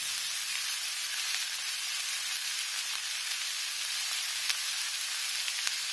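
Chopped onions sizzling steadily in hot oil in a kadhai, an even frying hiss with two small clicks in the second half.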